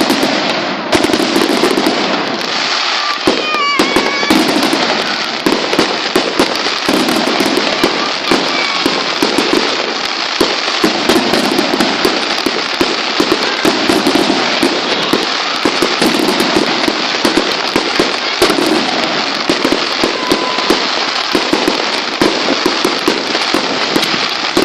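Fireworks going off without a break, a dense run of rapid crackling pops and bangs.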